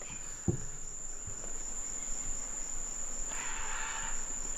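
Rainforest insects holding a steady high-pitched drone. A soft knock comes about half a second in, and a short rustling hiss near the end.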